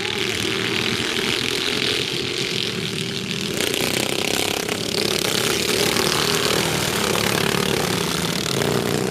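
Engines of several racing ride-on lawnmowers running as a pack passes close by, growing a little louder and fuller from about three and a half seconds in.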